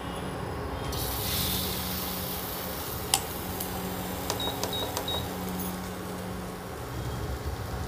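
Battered topshe fish sizzling in hot oil in a frying pan, the sizzle starting suddenly about a second in as the fish go into the oil. A spoon clinks once against the steel batter bowl, and three short high beeps sound midway.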